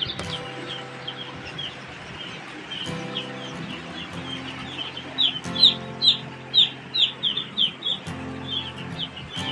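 A crowd of young chicks peeping, many short high cheeps overlapping, growing loudest a little past halfway.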